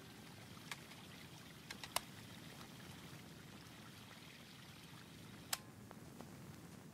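Paper pages of a hardcover planner being turned and pressed flat by hand: faint rustling with a few sharp taps, the loudest about two seconds in and another about five and a half seconds in.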